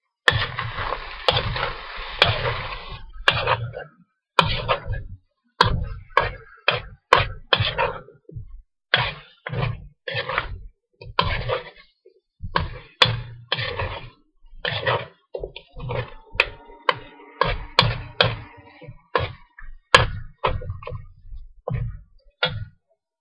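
A long-handled metal spoon scraping and knocking against a metal wok while stir-frying chicken and vegetables. It starts as a continuous scrape for about three seconds, then becomes separate quick strokes, roughly two a second.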